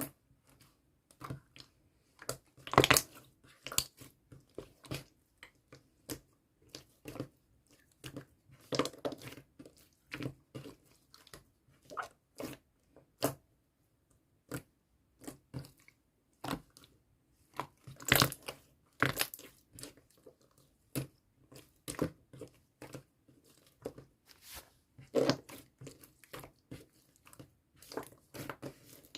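Hands pressing, poking and stretching pink slime topped with clay: irregular sticky crackles, small pops and squishes, with a few louder clusters of crackling.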